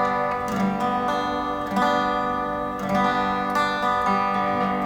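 Acoustic guitar strumming a chord, struck again about once a second and ringing on between strokes. It is a live concert recording played back over hi-fi loudspeakers in a room.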